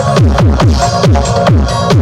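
Electronic dance remix played loud through a Ten Brothers mini sound system. Heavy bass kicks, each dropping in pitch, come about four a second under synth notes and hi-hats.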